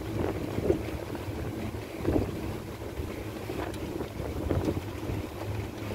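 A pontoon boat under way: its motor runs with a steady low hum, under gusting wind buffeting the microphone.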